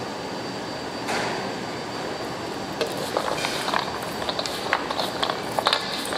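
Chocolate-coated almonds being mixed with a spatula in melted chocolate, clicking and rattling against each other from about three seconds in, over a steady hum.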